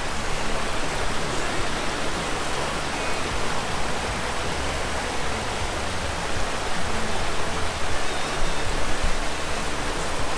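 Shallow rocky mountain stream running over boulders: a steady, even rush of water.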